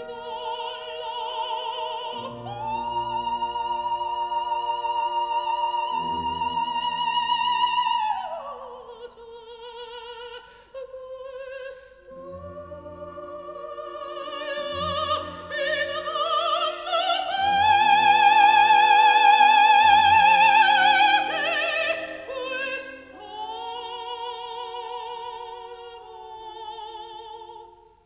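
Operatic singing over orchestral accompaniment: a high voice with vibrato holds long notes, swoops down about eight seconds in, then climbs to a loud sustained high note in the second half before easing off.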